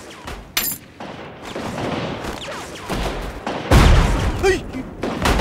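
Action-film gunfire: a sharp shot about half a second in, then a dense stretch of shots and noise, and two heavy booms, the loudest about four seconds in.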